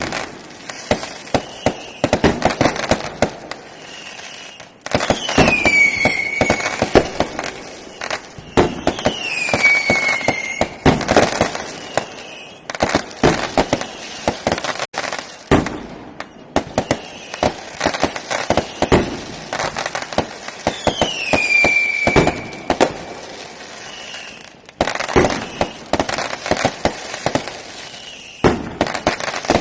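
Firecrackers and fireworks going off non-stop: dense runs of sharp bangs and crackles, with a whistle falling in pitch four times.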